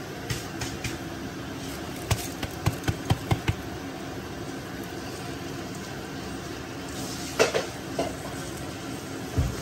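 Rice and spiced masala in a pot on a gas stove sizzling quietly over a steady background hum, with a quick run of sharp taps about two seconds in and a few more knocks near the end.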